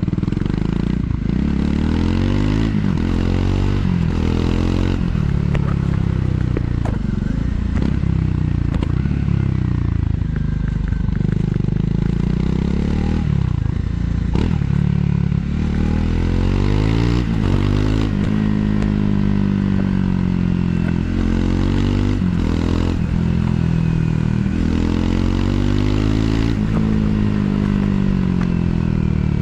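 Triumph Scrambler 400 X's single-cylinder engine through its stock exhaust, riding, its revs rising and falling again and again through gear changes, with wind noise on the microphone.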